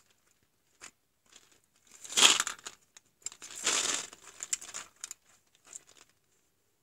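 Toy gumball machine worked by hand, its plastic mechanism and gumballs rattling in two noisy bursts about two and three and a half seconds in, with scattered clicks between.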